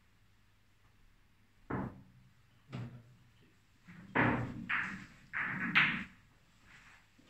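A cue strikes a billiard ball, and then the balls knock against each other and the cushions. First a sharp knock about two seconds in and another a second later, then a louder run of knocks and thuds a little past the middle.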